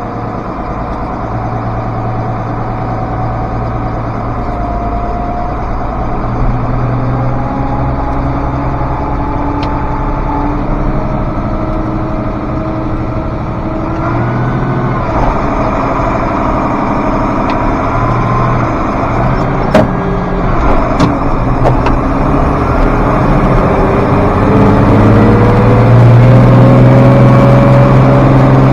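International Harvester 5288 tractor's diesel engine running, with a few sharp clicks around the middle; near the end its pitch rises and it grows louder as it is throttled up.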